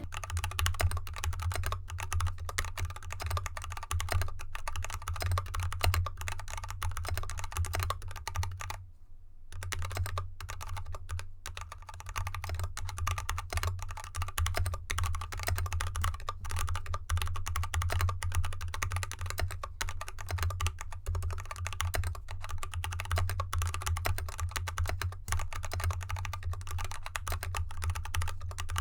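Steady typing on a mechanical keyboard with unlubed Kailh Box Red Pro 35gf linear switches and XDA keycaps, in an aluminium case with dampening foam, sitting on a desk mat over felt. Dense key clicks throughout, with a brief pause about nine seconds in.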